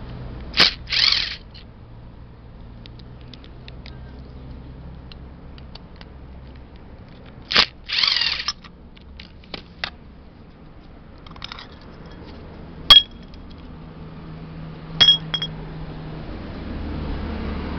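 Electric impact driver run in two short bursts, about a second in and again about eight seconds in, backing out the float bowl screws of a single-cylinder motorcycle carburetor. Then small metal clicks and clinks as the screws and parts are handled and set down, the sharpest about thirteen seconds in and two more near fifteen seconds.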